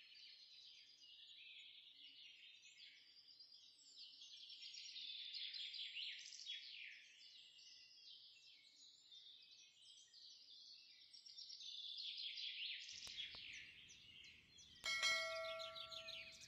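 Birds chirping and twittering, a dense run of quick falling chirps. About two seconds before the end, a bell chime rings out with held tones, the loudest sound here.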